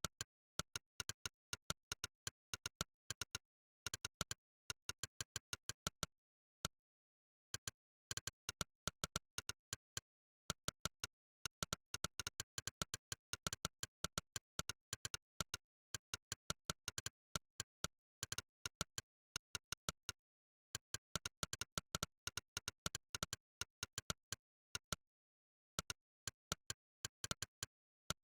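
Monkeytype's 'click' keypress sound effect, one short sharp click per keystroke, coming in fast irregular runs as someone types. The runs are broken by several pauses of up to about two seconds, with dead silence between clicks.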